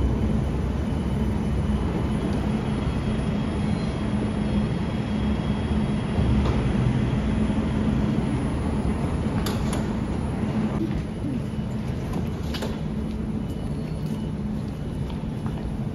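Sydney light rail tram pulling into the platform and standing at the stop with a steady low hum. There are a few sharp clicks about halfway through.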